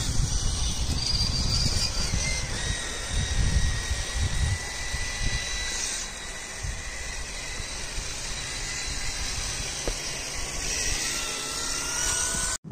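Small electric motor and gears of a radio-controlled scale crawler truck whining, the pitch shifting with the throttle and climbing near the end, over an uneven low rumble.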